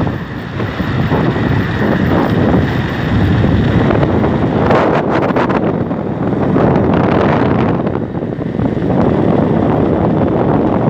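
Strong wind buffeting the microphone of a camera on a moving bicycle, gusting up and down, with a short spell of crackles about five seconds in.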